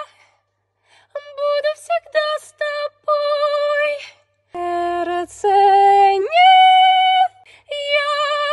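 A woman singing wordless syllables with no accompaniment: short repeated notes on one pitch, then a lower held note and a slide up into a long held high note about six seconds in.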